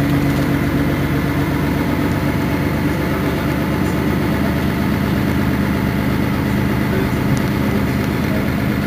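Engine of a Mercedes-Benz Citaro Facelift city bus running with a steady hum. Its pitch shifts slightly a second or two in.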